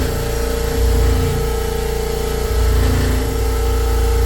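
Air compressor running loudly in its noise-suppression cabinet, a steady motor hum with a held mid tone, while the loose cabinet panels rattle. The rattling means the panels are not held firmly in place.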